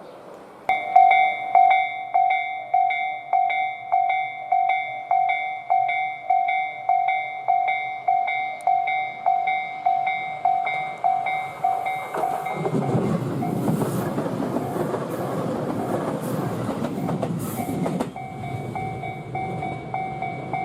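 Japanese level-crossing warning bell ringing in a steady rhythm, a little under two strikes a second. About twelve seconds in, a train passes for about six seconds and drowns the bell, which rings on once the train has gone by.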